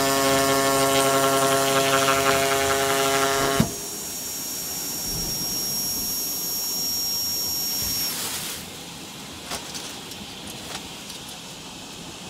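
Driven vibro knife on a Genesis cutting table running with a steady pitched hum, which cuts off abruptly with a click about three and a half seconds in. A steady high whine from the machine continues until a little past halfway, then stops, leaving a lower background with a few faint clicks.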